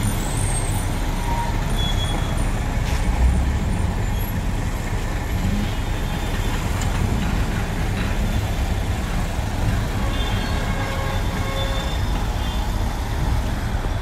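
Road traffic dominated by the steady low rumble of heavy container trucks' diesel engines running as they stand and pull across.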